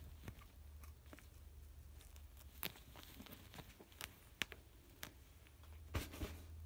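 Quiet room with a low steady hum and a handful of scattered light clicks and taps, the sharpest about two and a half seconds in, near four and a half seconds and near the end.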